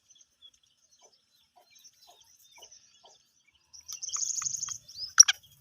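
Black francolin calling: a short high rattling chirp about four seconds in, then one sharp call with a quick sweep in pitch near the end. Before that there are only faint scattered chirps.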